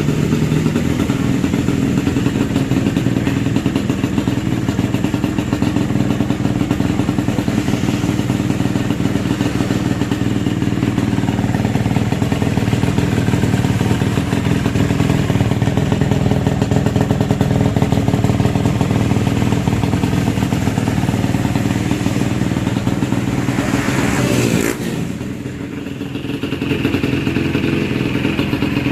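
Yamaha RX-King's freshly rebuilt two-stroke single-cylinder engine running steadily. A little before the end it gives one quick rev, then drops briefly quieter before settling again.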